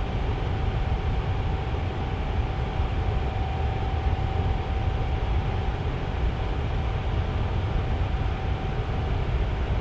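Tower fan running steadily: a constant rush of moving air with a deep rumble and a thin steady hum from the motor.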